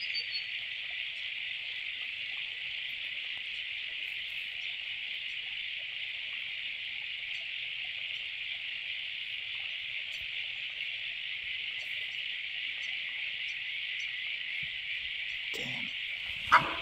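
Steady, high-pitched chorus of insects droning without a break. Near the end a single short, loud sound cuts in, rising sharply in pitch.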